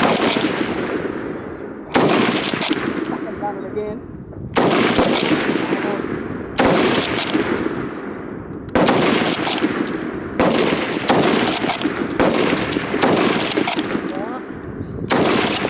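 Rapid rifle fire from a .303 Lee–Enfield SMLE No.1 Mk III bolt-action rifle: about nine shots, one every one to two seconds, each with a long fading echo.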